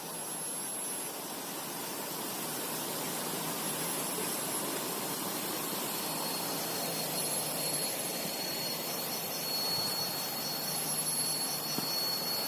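Waterfall roaring: a steady, even rush of falling water. A thin, high steady tone joins about halfway through.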